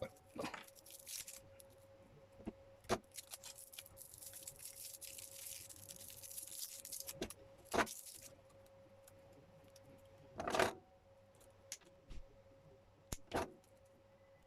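Small clicks, knocks and a crackly rustle of hands working an Ethernet cable and its wires with small tools, with three louder knocks in the second half and a faint steady tone underneath.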